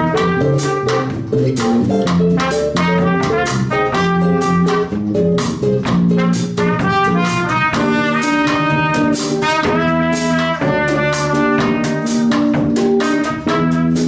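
Small jazz combo playing: a trumpet carries the melody over electric bass, guitar and a drum kit, with cymbal strokes keeping a steady beat.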